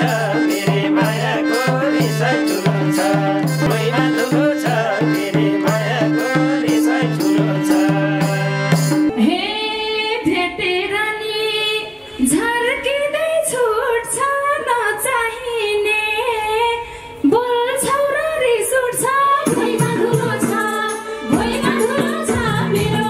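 Live Nepali dohori folk music: an instrumental passage of quick hand-drum rhythm under held chords, then about nine seconds in a woman starts singing a verse over lighter accompaniment, with the fuller band returning near the end.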